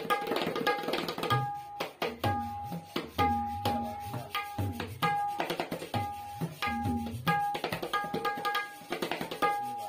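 A tabla pair played solo in a fast flowing pattern. Crisp ringing strokes sound on the treble drum (dayan) at one steady pitch, mixed with deep bass strokes on the bayan that slide up and down in pitch.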